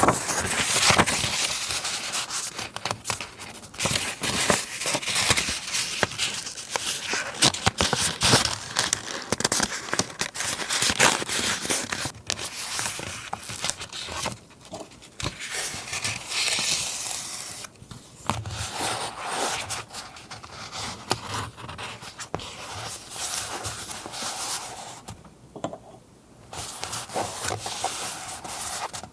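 Paper being handled, rustled and torn for a scrapbook journal page: crinkly rustling with many small clicks and taps, pausing briefly a few times.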